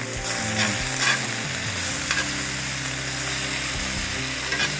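Spinach sizzling in a hot pan of oil, butter and garlic as it wilts, tossed with metal tongs, with a few faint clicks from the tongs now and then.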